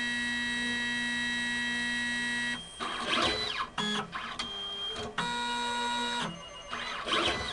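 Stepper motors of an automatic pipetting robot whining as the arm travels and the syringe dispenses water. There is a steady whine of several tones for about two and a half seconds, then short whines that ramp up and down in pitch, and another steady whine at a different pitch around five seconds in.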